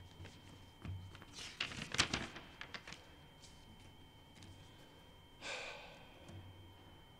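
Paper rustling and sheets being laid flat on a wooden lectern, close to its microphone: a cluster of crackles and light knocks about a second and a half in, then a shorter soft hiss about five and a half seconds in. A faint steady high whine runs underneath.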